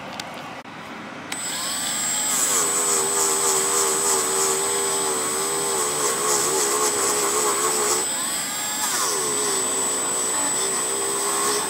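Dremel rotary tool with a cloth polishing wheel switched on about a second in and running steadily, buffing the metal medallion on an antique Singer 27 sewing machine head with polishing compound. It has a constant high whine, and its pitch sags briefly and recovers about eight seconds in as the wheel is pressed against the part.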